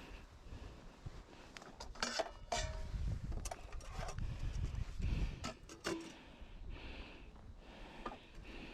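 Things being handled: a scatter of knocks, clicks and rubbing, busiest in the middle, over a low rumble.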